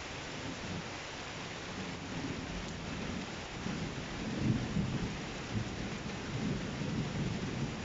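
Steady rain falling, with low, uneven thunder rumbling in from about halfway through.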